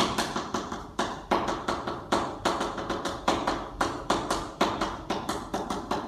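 Chalk tapping and scratching on a blackboard as characters are written: an uneven run of sharp taps, several a second, each with a short scrape.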